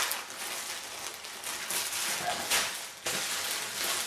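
Clear plastic bags crinkling as they are gathered up and moved by hand. The bags hold the kit's screws, nuts and bolts. The sound is an irregular, continuous rustle.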